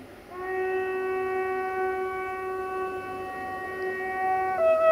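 Horn of an approaching VT614 diesel multiple unit, sounding one long steady blast. Near the end it changes to a second, different tone.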